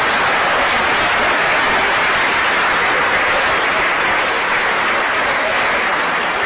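Audience applauding in response to a joke, a dense steady clatter of many hands that eases slightly near the end.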